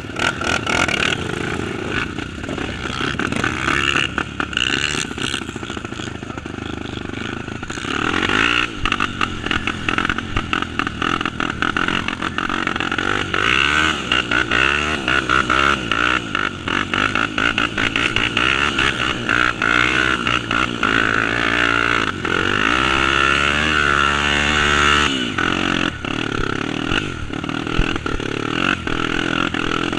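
Single-cylinder Honda trail motorcycle engine running, its pitch rising and falling repeatedly as it is throttled up and eased off, louder from about eight seconds in.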